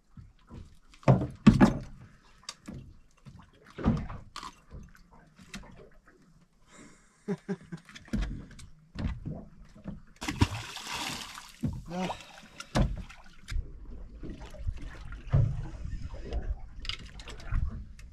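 Sharp knocks and thumps of a fish being handled and unhooked on a small boat's deck, then a splash about ten seconds in as a fish is thrown back into the sea. A low steady rumble runs through the last few seconds.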